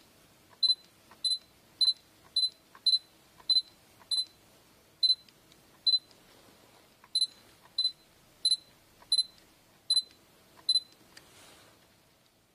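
Sony a6000 focus-confirmation beeps: about fifteen short, high electronic beeps, one every half second to second with a couple of longer pauses. Each beep signals that autofocus has locked as the shutter button is half-pressed again and again.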